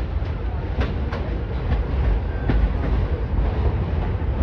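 Vintage subway train pulling into the station, a low rumble growing louder as it nears, with a few sharp wheel clacks over the rail joints.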